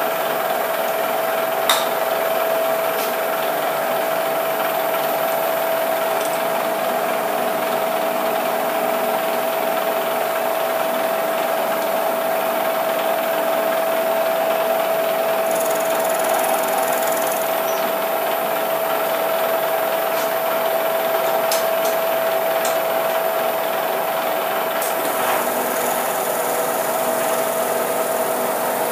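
Bridgeport milling machine taking a light facing cut across aluminium soft jaws, its cutter turning at 1200 RPM: a steady whine over the hiss of cutting, with one sharp click about two seconds in.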